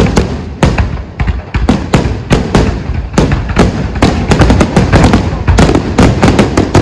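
Fireworks display at its finale: a dense barrage of aerial shell bursts, several sharp bangs a second over a continuous low rumble.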